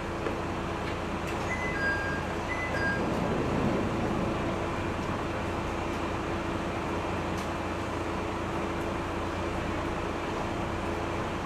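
Kanto Railway Kiha 310 diesel railcar's DMH17 engine idling steadily with a constant hum. About two seconds in, a short two-note electronic chime sounds twice.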